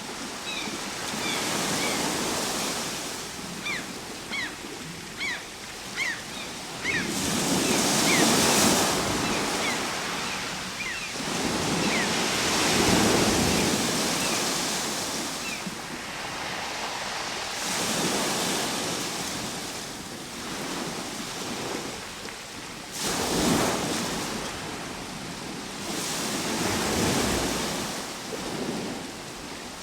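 Ocean waves breaking and washing ashore, rising in a surge every few seconds and ebbing between. Short high chirps sound over the surf in the first half.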